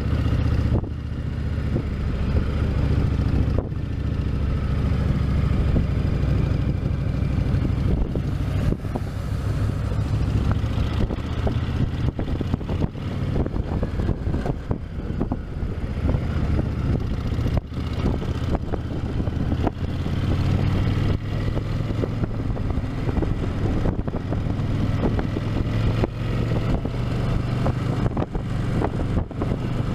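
Honda VTX 1300's V-twin engine running through its stock exhaust, a deep, steady note whose pitch shifts a few times.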